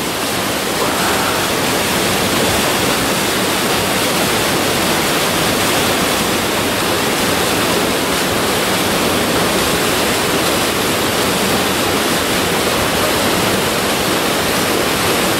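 Whitewater of a river cascade rushing steadily into a rock-walled pool, heard close by.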